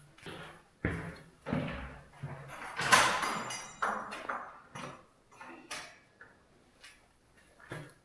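A run of separate knocks and bumps, the loudest about three seconds in.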